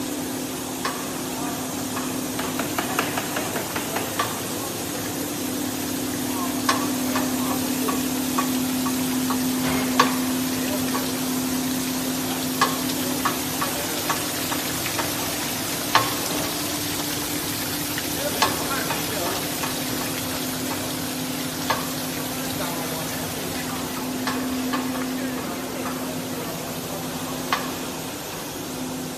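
Krah spiral-wound plastic pipe production line running: a steady motor hum under a hiss, with scattered sharp clicks.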